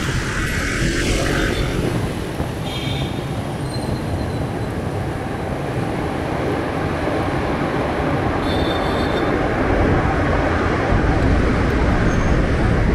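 Steady road traffic noise with a continuous low rumble, heard from a bicycle riding alongside cars and a bus. Brief high-pitched tones sound about 3 seconds in and again about 8 seconds in.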